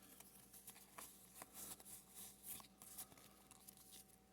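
Faint rustling and small clicks of Pokémon trading cards being handled and slid across one another.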